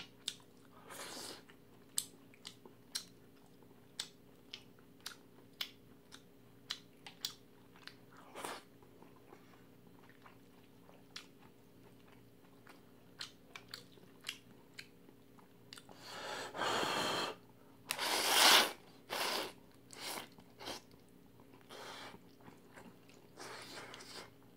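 Close-up eating sounds of jjamppong noodles: wet chewing with sharp mouth clicks about twice a second, then a few longer, louder slurps about two-thirds of the way through.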